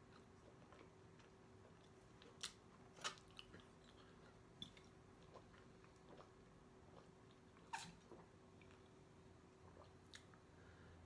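Near silence with a faint steady hum, broken by a handful of short soft clicks and smacks from a person eating and drinking from a glass soda bottle.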